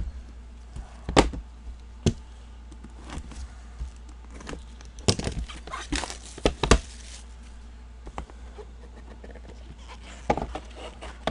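Cardboard trading-card boxes and cards being handled and set down on a table: scattered knocks and taps, with a busier patch of clatter and rustling about five to seven seconds in, over a steady low hum.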